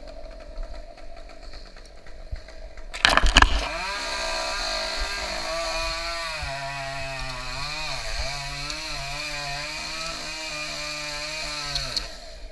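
Chainsaw engine revving up sharply about three seconds in, then running under load, its pitch sagging and wavering as it cuts into the tree; it drops off near the end.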